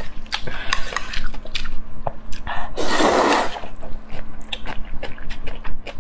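Close-miked eating of saucy noodles: wet chewing and lip-smacking clicks throughout, with one long slurp of noodles a little before the middle.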